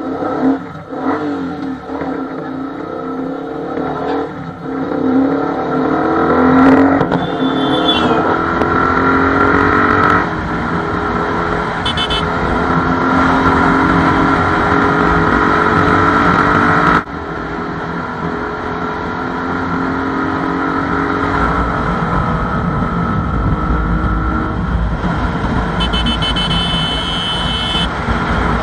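Suzuki Gixxer SF single-cylinder engine through a loud aftermarket SC Project-style slip-on exhaust, accelerating hard from a pull-away. Its pitch climbs and then drops back at each upshift, several times over.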